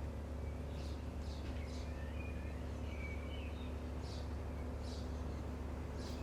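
Small birds chirping and twittering in short, scattered calls over a steady low hum.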